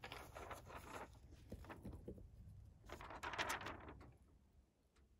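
A sheet of paper rustling as it is handled and held up, with one louder crinkling rustle about three seconds in, then fading to near quiet.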